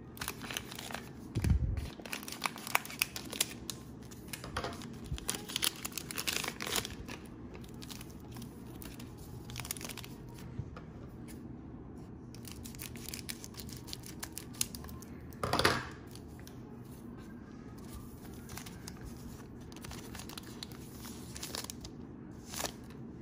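Cellophane wrapper of a trading-card cello pack being torn open and crinkled, with the cards handled. Dense crinkling fills the first several seconds, with a low thump about a second and a half in, then quieter handling and one loud crinkle about two-thirds of the way through.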